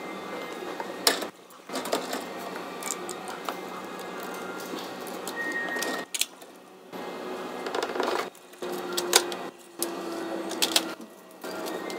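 Point-of-sale cash register in use: key clicks and taps with a receipt printer running, broken by several abrupt short gaps.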